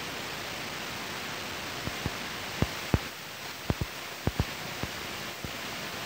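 Steady hiss of outdoor background noise on a phone microphone. Through the middle seconds it is broken by about ten short, irregular knocks from fingers handling the phone.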